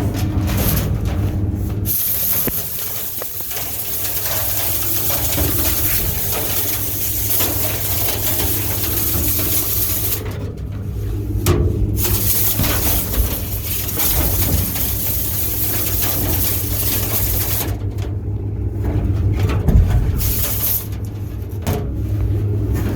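Dryer vent cleaning equipment running: a loud hiss of rushing air comes and goes in long stretches over a steady low rumble.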